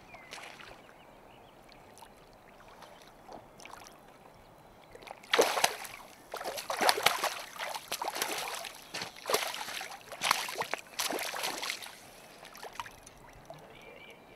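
A hooked trout thrashing in shallow river water as it is drawn in to be landed, a run of irregular splashes that starts about a third of the way in and goes on for several seconds.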